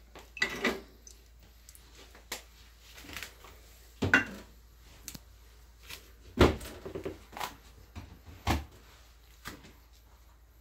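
Kitchen handling noise: scattered light knocks and clatters of utensils and dishes, with a few louder knocks spaced a couple of seconds apart.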